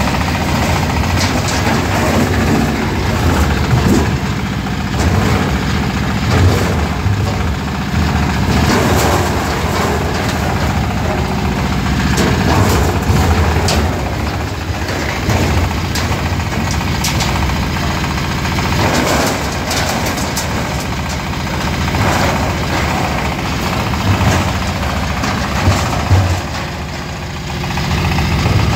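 A 13 hp diesel engine running steadily as it drives an oil palm fruit stripping (brondol) machine, with irregular clattering knocks over the engine drone.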